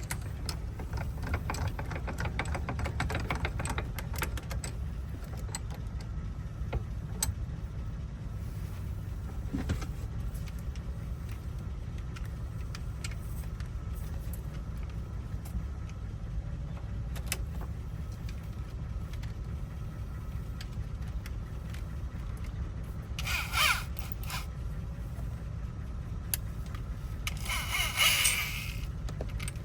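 Small metal clicks and ticks of a car lock cylinder's wafers and pins being picked at with small tools, over a steady low rumble. Near the end come two short, louder scraping bursts.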